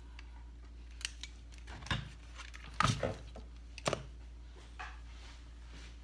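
Small hard tools and parts being handled on a workbench: a few separate clicks and knocks, the loudest cluster about three seconds in, over a steady low hum.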